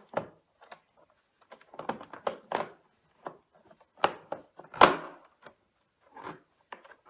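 Knocks and clatters of upright vacuum cleaner parts being handled and fitted back together during reassembly after a drive-belt replacement. About eight separate knocks, the loudest nearly five seconds in.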